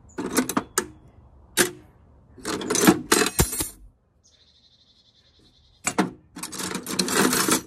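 Steel drill bits clinking and rattling against each other as they are handled in a toolbox: scattered clicks, then denser clattering, a pause of about two seconds midway, then more clattering.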